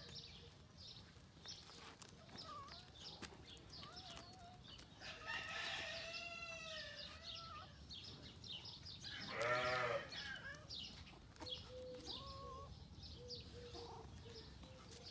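Farmyard animal calls: a rooster crows about five seconds in, and a goat bleats with a quavering voice near the middle, the loudest sound. Short faint chirps recur throughout.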